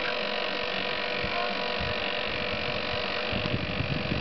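Electric winch motor running with a steady hum as it slowly hauls a rock-laden cart up a plank ramp. A low rumble joins in about three seconds in.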